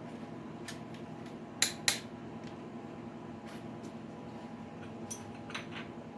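Torque wrench clicking on the connecting-rod bolts of a Ford 351W stroker as they are rechecked for torque: a sharp pair of metallic clicks about a second and a half in, with fainter clicks before and near the end, over a steady background hum.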